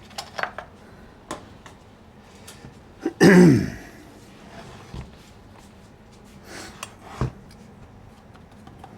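Light clicks and taps of hand tools and parts being handled on a chainsaw during disassembly. About three seconds in there is a short loud throat-clearing-like sound that falls in pitch, and near seven seconds a single knock.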